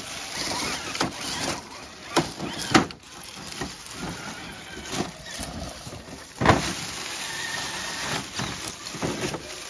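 An RC rock crawler clambering over rocks: a handful of sharp knocks and clacks of its tyres and chassis on rock, the loudest about six and a half seconds in, over a steady rush of noise.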